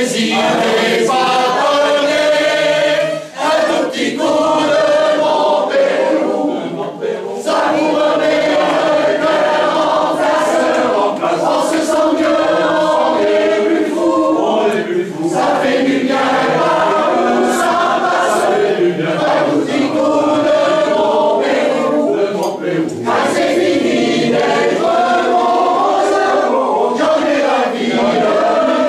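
A men's choir singing a French drinking song together, many voices in unison and harmony.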